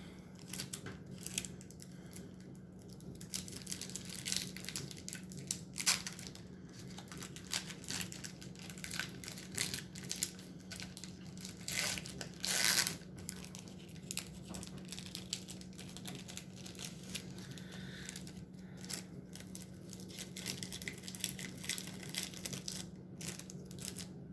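Trading cards being handled and sorted by hand: frequent light clicks, slides and rustles of card stock and paper, with a longer rustle about twelve seconds in.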